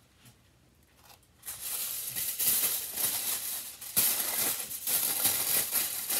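Aluminium foil crinkling and rustling as dinner plates are wrapped, starting about a second and a half in, with a sharp knock about four seconds in.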